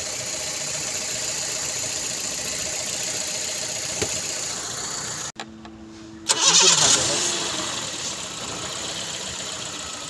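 Four-cylinder petrol engine idling with its mass air flow sensor unplugged, running a little rough. About halfway the sound drops away for a second to a low hum, then comes back louder with a hiss before settling to a steady run.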